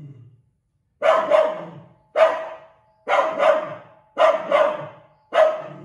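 Dog barking hard and repeatedly at a snake, mostly in quick double barks, after a low growl that fades out at the start.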